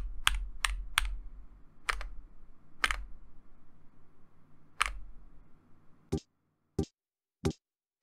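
Mechanical keyboard keys pressed one at a time, about ten single sharp keystrokes at uneven spacing. The last three come after silence.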